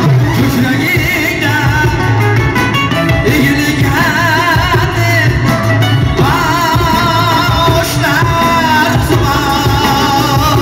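Amplified male voice singing with a wavering vibrato over a live Uzbek band: doira frame drum, a large drum, electronic keyboards and electric guitar, all played through PA speakers.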